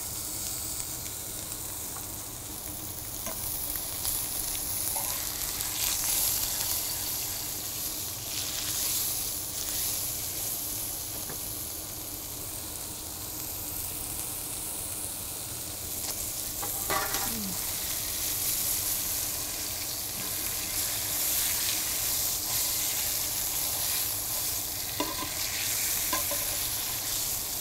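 Lamb leg and beef fillet searing in hot oil in frying pans, sizzling steadily, with a few light clicks of metal tongs on the pans.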